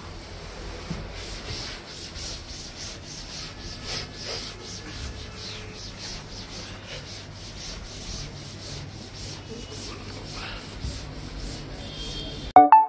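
A cloth rubbed in repeated strokes over 1 mm PVC vinyl sheet flooring, pressing out trapped air so the sheet lies flat. Electronic music starts right at the end.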